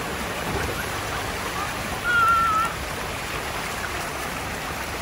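Steady rushing and splashing of floodwater churned up by an electric scooter riding through the flooded street. About two seconds in, a brief wavering high tone sounds over it.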